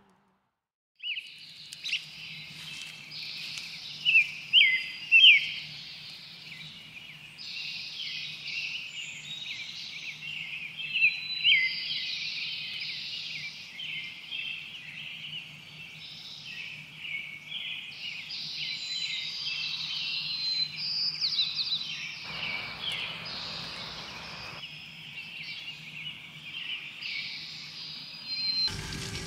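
Several songbirds singing and chirping in a dawn chorus, with many short, quick phrases, starting about a second in. A faint steady low hum sits underneath, and a brief low rush comes about two-thirds of the way through.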